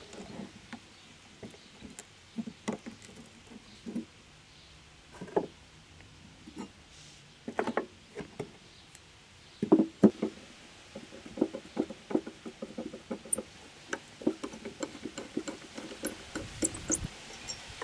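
Hand tools working on small steel linkage parts of a mower cutting deck on a wooden bench: irregular clicks, taps and knocks of pliers, screwdriver and fittings, the loudest pair about ten seconds in and coming thicker in the second half.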